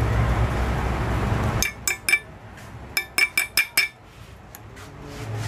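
A steady low rumble that cuts off abruptly, then sharp metallic clinks of a small steel chisel tapping against the aluminium body of a Mikuni carburetor: three clinks, a short pause, then five in quick succession. The tool is picking out what is left of an air screw whose slot edges are worn away.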